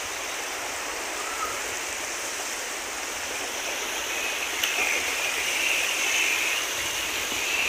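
Sea waves washing onto a sandy beach: a steady rushing hiss.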